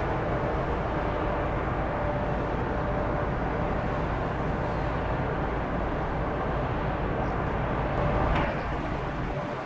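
The ferry Jan Śniadecki's engines and propellers run steadily as it manoeuvres into its berth, a low rumble with a faint steady hum over it. The sound swells briefly about eight seconds in.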